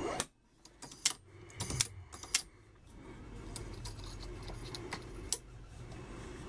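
Sharp metallic clicks and clinks from a Hornady Lock-N-Load AP progressive reloading press as a brass pistol case that has just been charged with powder is worked in the shell plate and pulled out. The clicks are scattered over the first two and a half seconds, with one more about five seconds in.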